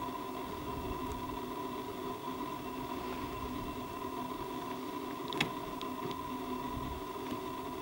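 Steady hiss with a constant electrical hum from the camera itself, picked up by its built-in microphone, and a sharp click about five and a half seconds in followed by two faint ticks.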